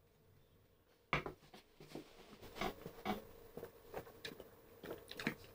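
Faint handling and tasting sounds after a sip of beer: a sharp knock about a second in, then scattered light clicks and taps from glasses being lowered and mouths smacking.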